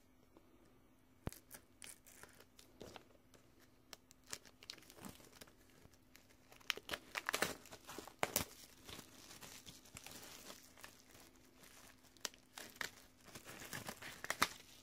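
Plastic wrap being torn and peeled off a Blu-ray steelbook case, crinkling with scattered sharp crackles that come thickest about halfway through and again near the end.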